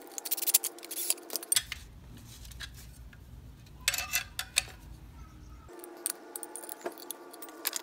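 Small metal hardware clinking and clicking as screws, washers and a small wrench are handled on a Speed-Tie handlebar mount, with irregular sharp clicks over a steady low hum.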